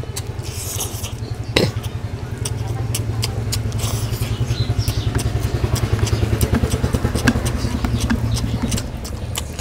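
Close-up eating sounds: many short wet clicks and smacks of chewing, with one sharper click about one and a half seconds in, over a steady low rumble.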